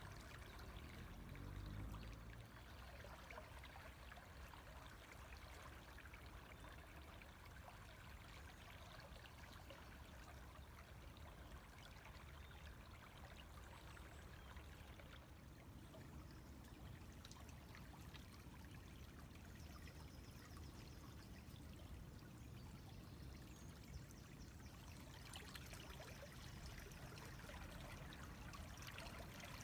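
Faint, steady sound of a river flowing, with water streaming and trickling.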